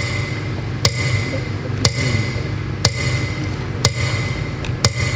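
A metronome ticking steadily once a second over a loudspeaker system, with a low steady hum beneath. This is the metronome beat played for the Victory Day minute of silence.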